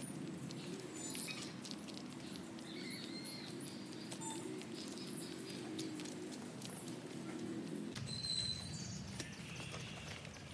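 Outdoor ambience: scattered short bird chirps and small ticks over a steady low background noise.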